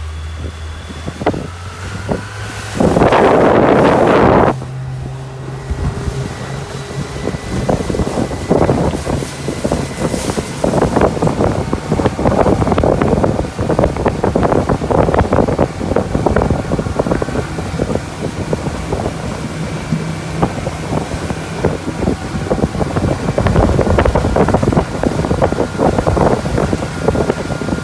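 Outboard motor running at speed, with wind buffeting the microphone and the hull knocking over the chop. A loud rush of noise about three seconds in lasts a little over a second.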